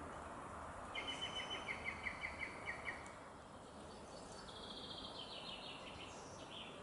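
Songbirds singing over steady outdoor background noise: a loud run of about a dozen quick repeated notes, about six a second, then a quieter, higher trill a couple of seconds later.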